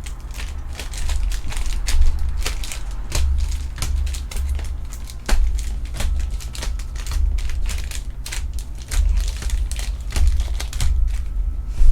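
Trading card packs and cards handled close to the microphone: wrappers crinkling, irregular sharp clicks and rustles, and dull handling bumps on the table.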